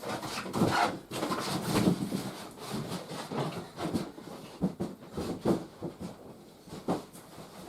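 A large cardboard box being handled and moved: irregular scraping and rubbing with scattered knocks, busiest in the first two seconds, then sparser.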